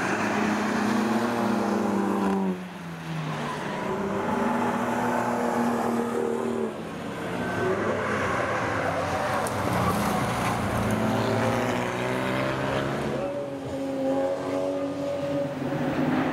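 Racing cars' engines running hard, their pitch repeatedly climbing and dropping through gear changes as cars pass; the sound shifts abruptly about two and a half and again about six and a half seconds in.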